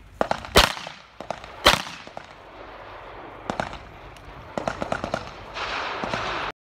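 Pistol gunshots on a shooting range. Two loud sharp cracks come about a second apart near the start, followed by fainter scattered shots. The sound cuts off abruptly just before the end.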